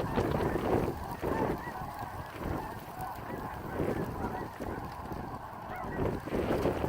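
A flock of snow geese calling, many high, wavering honks overlapping in a constant chatter, over gusty wind rumbling on the microphone.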